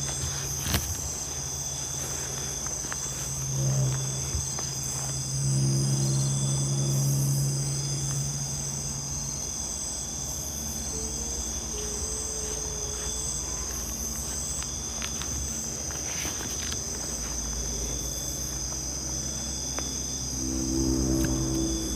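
Steady, high-pitched chorus of night insects with regular pulsing chirps. A low hum rises over it about four to nine seconds in and again near the end.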